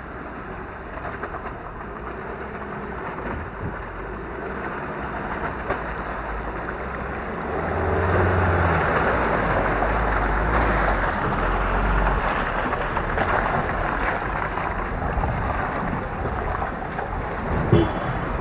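Ford Ranger pickup's engine pulling the truck slowly through deep mud ruts, with wind noise on the microphone; it grows louder about eight seconds in as the truck comes close, and there is a short knock near the end.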